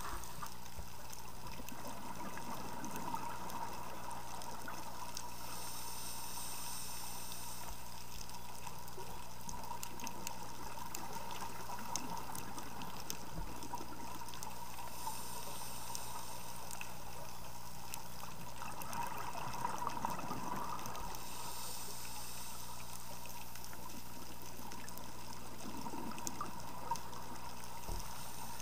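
Underwater ambience of a scuba dive: a steady hiss with scattered small crackles, swelling every several seconds with the bubbling of scuba exhalations.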